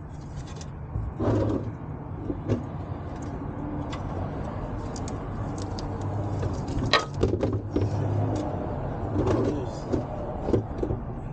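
Socket and wrench working the old oil pressure switch loose from the engine block of a 2004 GMC Envoy: scattered metallic clicks and knocks, the sharpest about seven seconds in, over a steady low hum.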